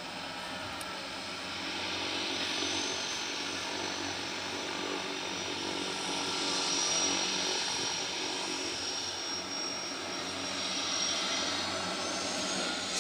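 Twin turboprop engines of a small passenger plane taxiing and turning on the runway just after landing. A steady high turbine whine sits over the propeller drone, and the sound swells and eases as the plane turns.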